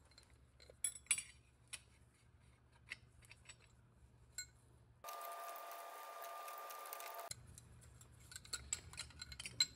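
Light metallic clicks and clinks of steel clutch plates and a metal piston sleeve being handled and slid onto a transmission output shaft, a few near the start and a quick run near the end. In the middle a steady faint hiss with a thin tone runs for about two seconds, then stops abruptly.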